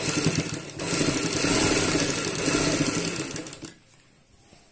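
Black domestic sewing machine stitching a seam, running in one burst of about three and a half seconds that starts abruptly, slackens briefly about a second in, then stops. It is sewing a doubled piping strip onto the edge of a kurti slit.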